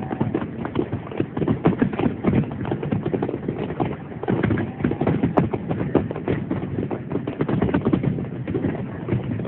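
Fireworks going off in rapid succession: a dense, irregular crackle of many pops and bangs with no pause.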